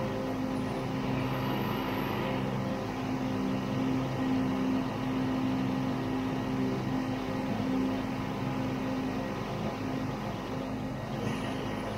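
Vintage Ski-Doo snowmobile's two-stroke engine running at a steady cruising speed, its pitch wavering a little.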